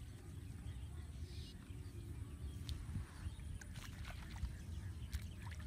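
Faint splashing and sloshing as a many-pronged fishing spear is jabbed into shallow paddy water and mud, with a few sharp little splashes toward the end, over a low steady rumble.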